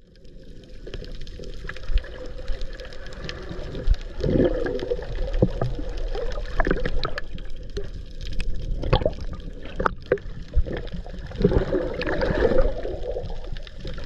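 Water heard from a camera held underwater: a muffled wash of water with scattered sharp clicks, and two stretches of bubbling and gurgling, about four seconds in and again near the end.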